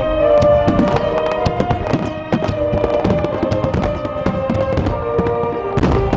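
Fireworks bursting and crackling in rapid, irregular succession, over music with long held tones.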